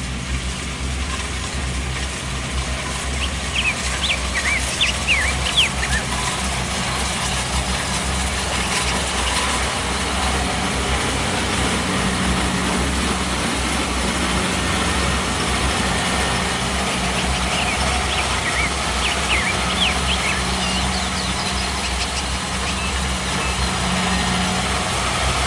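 Kubota DC-70 Plus combine harvester's diesel engine running steadily with a low rumble. Short high chirps come twice, a few seconds in and again past the middle.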